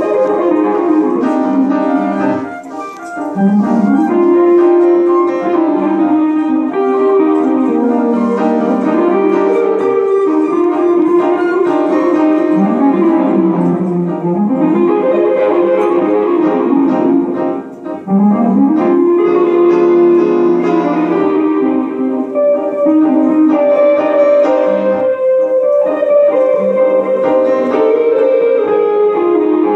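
Live grand piano playing with a hollow-body electric guitar in a small ensemble. The music drops back briefly about three seconds in and again just past halfway.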